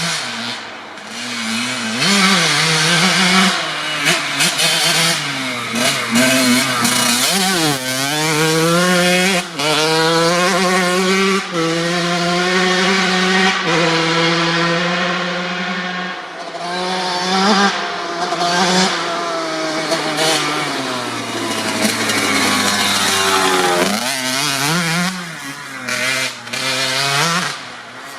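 1997 Kawasaki KX80 two-stroke dirt bike engine ridden hard, revving up through the gears again and again and dropping back between pulls, with the high, raspy two-stroke note.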